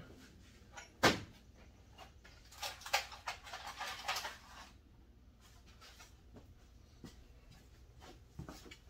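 Tools being rummaged through at a workbench across a small shop: a sharp knock about a second in, then scattered clicks and clatter as items are picked up and set down.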